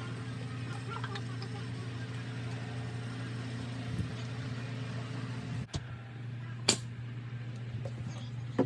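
Steady low mechanical hum throughout, with a brief dropout a little past halfway, a sharp click about two-thirds of the way through and a knock near the end.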